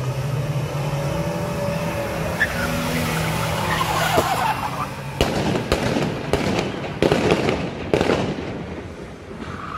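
Several police cars driving fast in convoy, engines running and tyres squealing. About halfway through comes a rapid, irregular series of sharp bangs lasting a few seconds.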